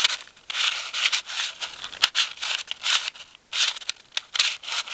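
Square-1 puzzle being turned and sliced in quick succession during the parity algorithm: a fast series of short plastic clicks and scrapes, several a second, with brief pauses between moves.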